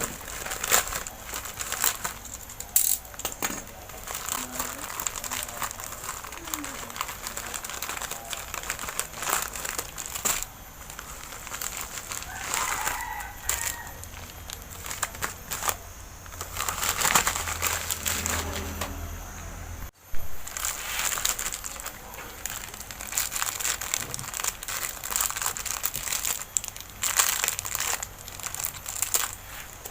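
Packaging crinkling and rustling in irregular bursts as a parcel is handled and unwrapped.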